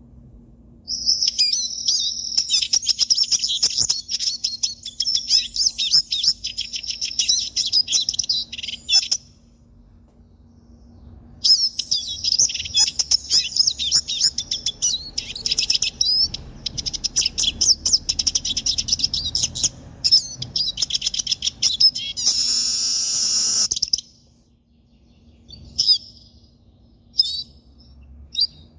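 Hooded siskin (pintassilgo) singing long, fast twittering phrases with a pause between them, the second ending in a harsh buzzy note, then a few short single calls near the end. A faint steady hum sits underneath.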